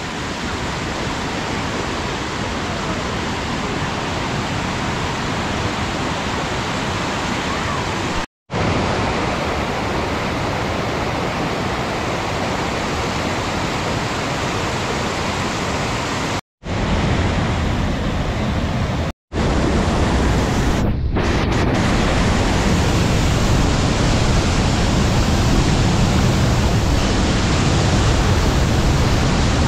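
Waterfall rushing steadily, running high after a night of rain. Dense, even water noise with no distinct splashes, broken three times by brief gaps of silence. It gets slightly louder and deeper in the last third.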